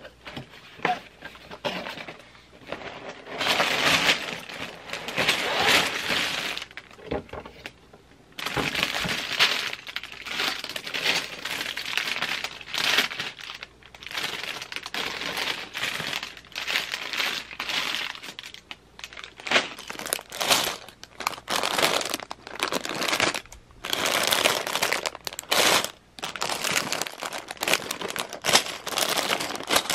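Clear plastic bags full of LEGO pieces crinkling as they are handled and set down, in irregular bursts of a second or two with short pauses between.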